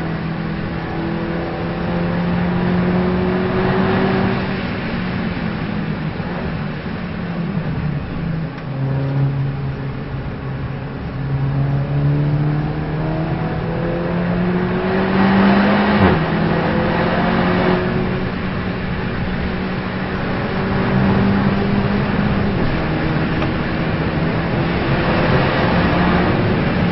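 Race car engine heard from inside the cabin on a lap. It pulls slowly up through the revs and drops back at each gear change or braking point, most sharply about 16 seconds in, with rushing noise swelling at a few points.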